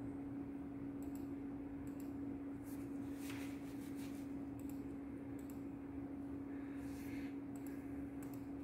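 A steady low hum at one pitch from running equipment, with a dozen or so faint, short clicks scattered through it.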